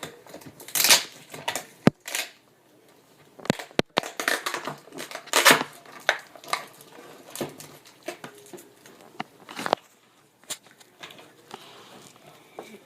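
Handling noise: irregular sharp plastic-like clicks mixed with short crackling, rustling bursts, coming in uneven clusters with pauses between.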